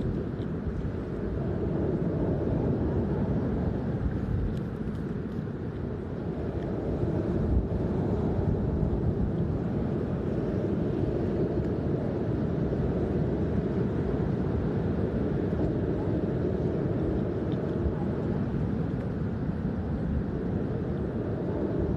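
Wind blowing across the microphone with surf breaking on the beach behind it: a steady low noise that swells and eases gently.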